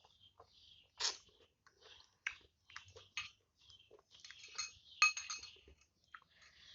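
Close-miked eating of chicken noodles: chewing and mouth noises, broken by sharp clinks of cutlery against the bowl, the loudest about five seconds in.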